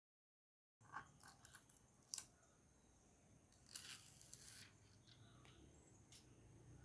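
Faint handling noises: a few sharp clicks, two close together about two seconds in, and a brief rustle about halfway through, after a moment of dead silence.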